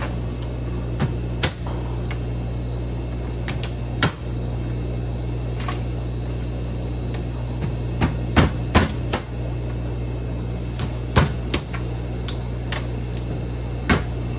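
About a dozen irregular sharp cracks and clicks, bunched most closely a little past the middle, as salt-roasted crab claws are cracked open and handled, over a steady low hum.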